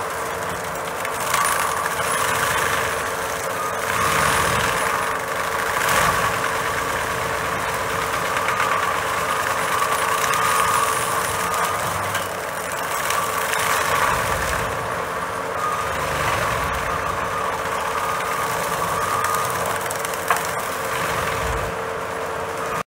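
John Deere 331G compact track loader running a forestry mulcher head, its engine and spinning drum giving a steady whine over dense grinding noise that swells and eases every couple of seconds as the drum chews a pepper tree into mulch. One sharp knock near the end.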